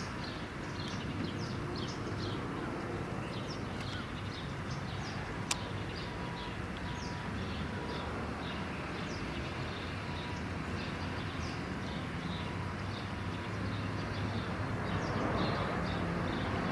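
Small birds chirping over and over above a steady low rumble of distant traffic. The rumble swells near the end.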